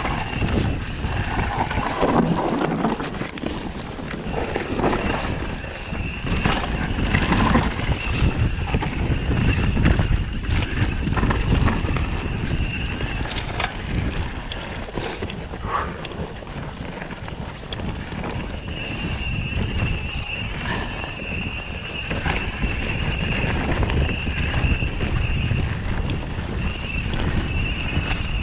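Propain Tyee mountain bike riding fast down a dirt singletrack: wind rushing over the microphone with tyres rolling on dirt and the bike rattling and knocking over bumps. A thin high whirr comes and goes, louder in the second half.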